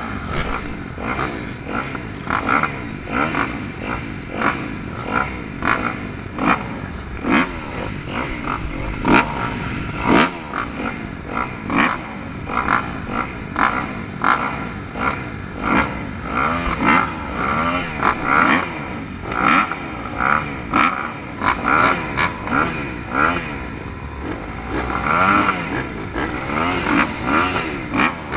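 Several 250-class motocross bikes sitting at the starting gate, their engines running together and revved again and again in short blips while waiting for the gate to drop.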